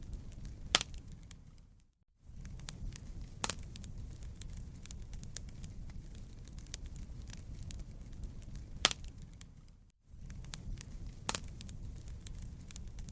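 Fireplace fire crackling: a steady low rumble of flames with many small crackles and four sharp pops. The sound dips out to near silence for a moment twice, about two seconds in and again about ten seconds in.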